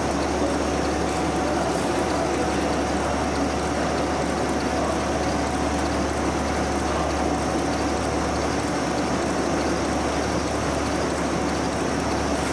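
Snack-food processing machine running: a steady, loud mechanical whirr with a low hum and a faint high whine, unchanging throughout.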